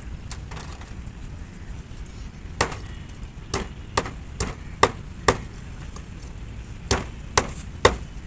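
A heavy knife chopping fish on a wooden log chopping block: a run of six sharp blows about half a second apart starting near three seconds in, a pause, then three more near the end.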